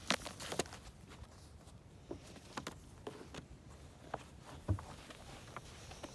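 Scattered light clicks and crackles, about a dozen at uneven spacing, with one dull low thump a little past the middle.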